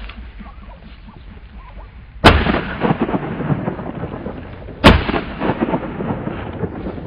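Two shotgun shots about two and a half seconds apart, each trailing off in a long rolling echo.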